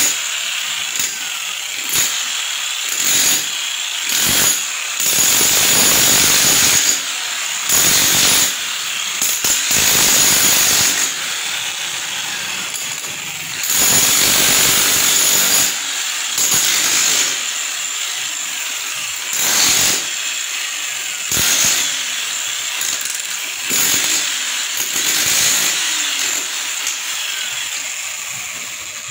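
Power tool running hard in repeated bursts, stopping briefly and starting again every second or few seconds, with a steady high whine under the hiss of its cutting.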